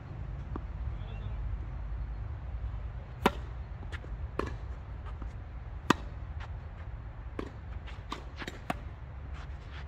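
Tennis rally: sharp pops of the ball coming off rackets and the court, the two loudest about two and a half seconds apart, then a quicker run of fainter knocks, over a steady low rumble.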